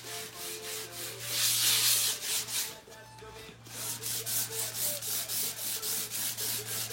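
Painted fabric car seat being sanded down by hand, in rhythmic back-and-forth strokes about three a second, with a louder, longer rub about a second and a half in. The fabric paint is being smoothed back before a coat of fabric primer. A steady low hum runs underneath.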